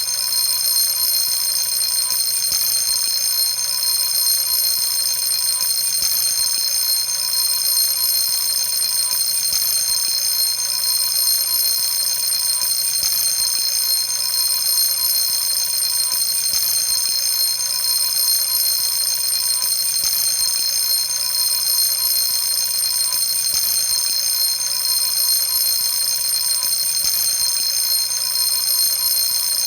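Electric fire alarm bell made by 仙暉工業, ringing continuously without a break. It is a loud, steady, high, metallic ring.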